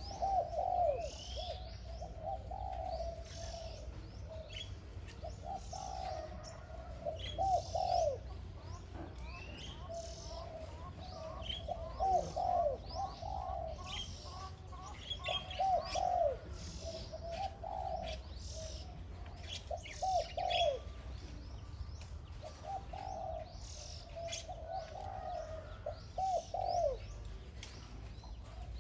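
Spotted dove, a decoy bird, cooing: phrase after phrase every few seconds, each ending in falling notes. Short high chirps of small birds come in between.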